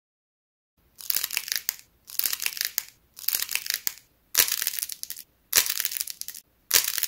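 A hardened, glossy-coated clay face being bent in both hands so its dried surface cracks: starting about a second in, about six bursts of dense crackling, roughly one a second.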